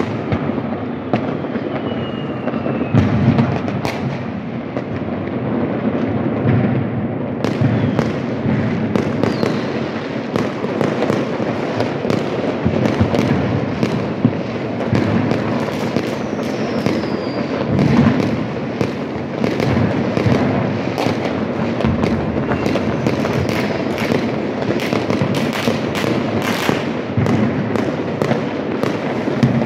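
Fireworks and firecrackers going off all over a city at once: a dense, continuous crackle of bangs with heavier booms every few seconds and a few brief whistles.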